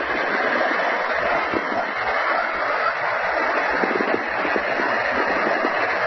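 Audio recording of Earth's magnetic field pulsations (geomagnetic micropulsations), made audible as a steady hiss thick with crackles, like a conversation heard far off.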